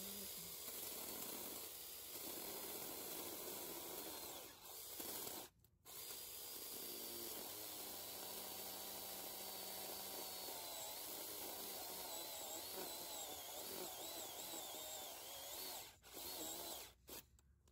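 JPOWTECH 21-volt cordless mini chainsaw running as it cuts through a thick branch, its motor whine wavering up and down in pitch. It stops briefly about five seconds in, then runs for about ten seconds more, and ends with a couple of short bursts.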